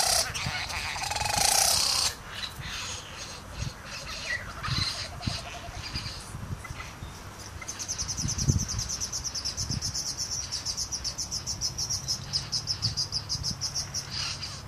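Male satin bowerbird's courtship display calls: a run of varied calls, then, from about eight seconds in, a long, fast, high-pitched pulsing rattle that stops shortly before the end.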